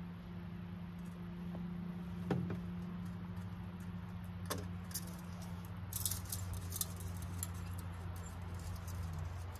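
Hot water poured from an aluminium camp kettle into an enamel mug, then the kettle knocked down on a plastic table, followed by a run of light metallic clinks as its lid and fittings are handled. A steady low hum runs underneath and drops away near the end.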